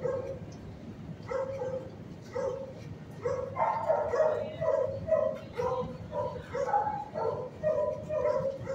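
Shelter dogs barking repeatedly, short pitched barks about two or three a second, getting busier about three seconds in.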